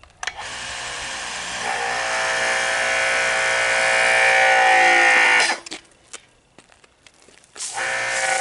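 Craftsman 2400 electric pressure washer's motor and pump starting up with a steady whining hum that grows louder over the first couple of seconds, then cuts off suddenly about five seconds in; it starts again near the end. The cut-outs are the machine's automatic shut-off when the trigger is not in use.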